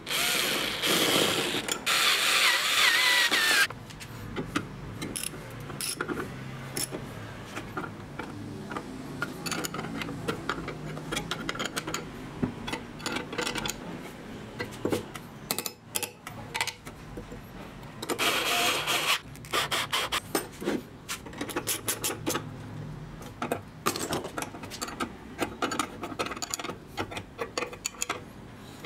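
Hand-tool work on metal: a spanner tightening a nut and bolt that fix a steel hinge bracket to the bench grinder's steel base, heard as many short metallic clicks and knocks. Two louder scraping bursts stand out, one lasting about three and a half seconds at the start and a shorter one about eighteen seconds in.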